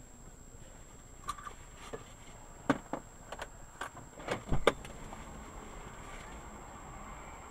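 Quiet car-cabin sound with a faint steady high whine and a run of about nine irregular sharp clicks and knocks through the middle few seconds.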